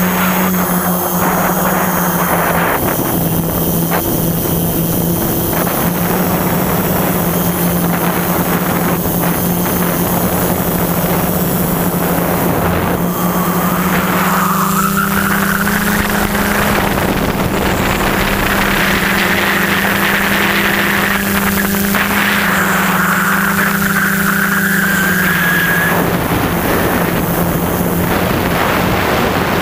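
Small drone's electric motors and propellers running in flight, heard from the camera on board: a steady buzzing hum over a rushing hiss, with a higher whine that slowly rises twice, once about halfway through and again later.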